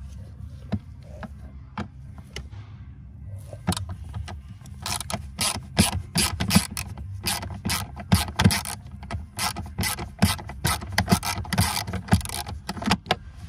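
Hand ratchet with an extension unscrewing fasteners under a car's glove box: a few scattered clicks, then from about three and a half seconds in, rapid runs of pawl clicking as the ratchet is swung back and forth.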